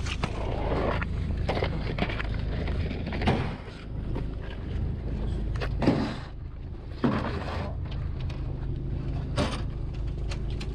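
Small fishing boat's engine idling with a steady low hum, with occasional knocks and scuffs over it.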